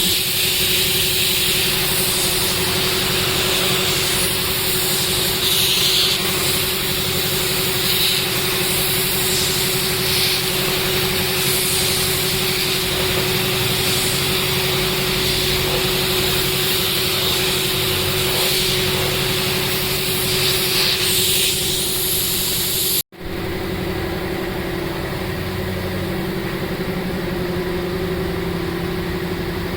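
A motor running steadily with a high hiss over it. It breaks off abruptly about 23 seconds in and a similar machine hum carries on.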